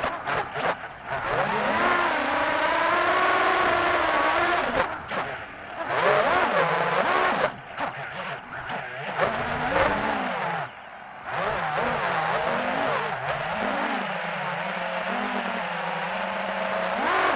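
FPV quadcopter's motors and propellers whining, the pitch rising and falling with the throttle. The whine drops away briefly several times as the throttle is cut, most deeply about eleven seconds in, then settles into a steadier, wavering tone.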